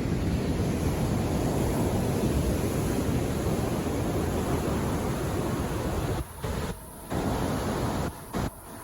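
Steady rush of wind and breaking surf on an open beach, strongest in the low end, broken by a few short sudden dropouts in the second half.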